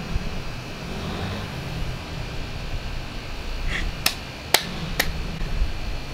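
Steady low outdoor rumble, with three sharp clicks about half a second apart a little past the middle, the second the loudest.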